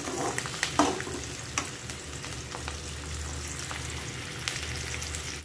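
Sliced onions and garlic frying in oil in an aluminium kadai, a steady sizzle, with a steel spoon clinking and scraping against the pan a few times as they are stirred. The onions are about half cooked.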